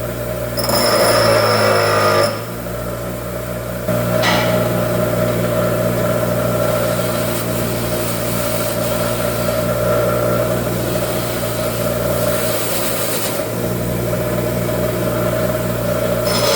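Small engine running steadily, with a louder, harsh noise over it for about two seconds near the start and a shorter burst about four seconds in.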